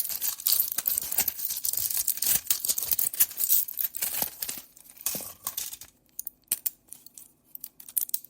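Pills (tablets) rattling and clicking: a dense clatter for about four seconds, then thinning to scattered single clicks.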